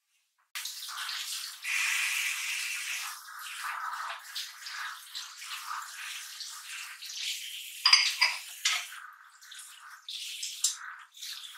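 Kitchen faucet's spray head running water into a ceramic sink while dishes are rinsed under it, switched on about half a second in. A few sharp clinks of dishes knocking together come about two-thirds of the way through.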